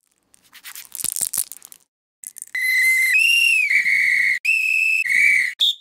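A run of shrill whistle blasts on plastic whistles. The pitch jumps between a lower and a slightly higher tone every half second or so, and a short higher blast comes at the end. Before them, about a second in, comes a scatter of clicks and crackles.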